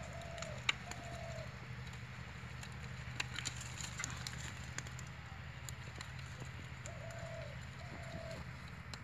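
A bird calling in pairs of short, low, slightly falling notes: one pair at the start and another about seven seconds in. Faint scattered ticks and taps come from fish being handled in a steel bowl.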